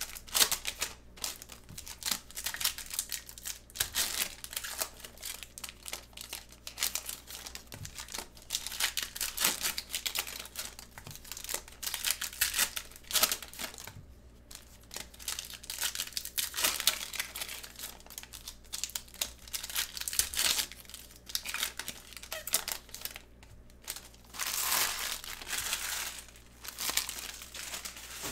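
Foil trading-card pack wrappers crinkling and tearing in irregular bursts as packs are ripped open and the cards handled, with a longer stretch of crinkling near the end.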